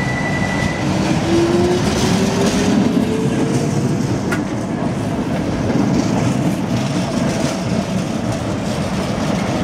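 Milan tramcar 4612 passing close by: its wheels rumble and clack along the rails. A whine rises in pitch over the first few seconds as it gathers speed, and a single sharp click comes about four seconds in.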